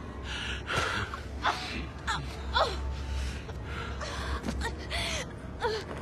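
A woman gasping and breathing hard in fear, about six sharp breaths roughly a second apart, with a few short falling whimpers, over a low rumble.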